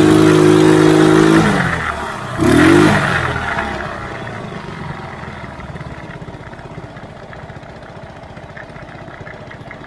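Quad bike engine revved hard and held high for about a second and a half, dropping away, then a second short rev, before settling to a lower, quieter run; the rider is trying to get the bike to go up the sand.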